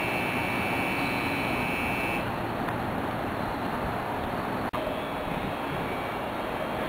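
Steady motor-vehicle noise, with a thin high whine over it for the first two seconds. The sound drops out sharply for an instant about two-thirds of the way through.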